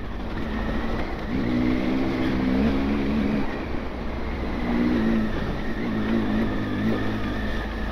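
Motorcycle engine running under way, its note rising and falling with the throttle and fading in and out a few times, over a steady rush of wind.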